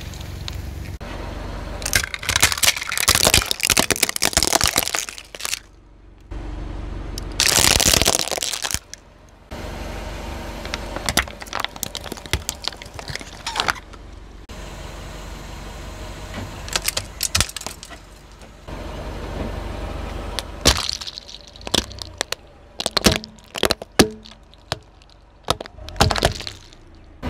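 A car tyre rolling slowly over and crushing piles of objects, heard in several short takes: water beads squishing and popping, plastic slime tubs crackling as they give way, and hard plastic toy pieces cracking and snapping. The sharpest single snaps come near the end.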